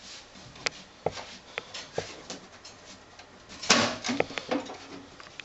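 Side access cover of a desktop computer case being unlatched with its release lever and taken off. Scattered clicks and knocks, with a louder brief scrape a little under four seconds in.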